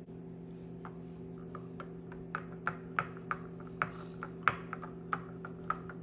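Metal spoon clinking against a ceramic bowl while stirring melted white chocolate, in light taps a few times a second that grow regular about two seconds in. A steady low hum lies underneath.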